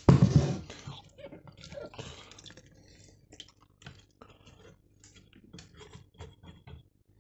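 Wet chopped sponge foam being pushed into a mincer attachment: a thump at the start, then scattered soft clicks and small wet squelches.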